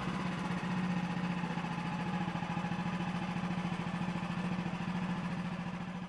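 Woodland Mills HM130MAX portable bandsaw mill's gas engine running steadily at an even pitch.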